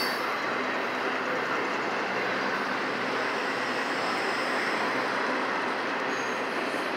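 Double-stack intermodal container cars of a freight train rolling past, their steel wheels on the rail making a steady noise.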